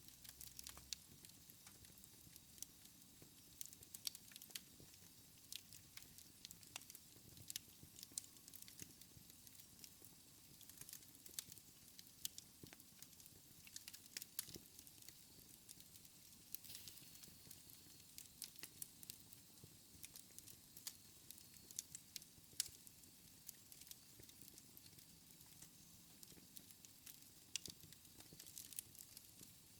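Wood fire in a fireplace crackling softly: frequent small, irregular pops and snaps over a low steady hiss.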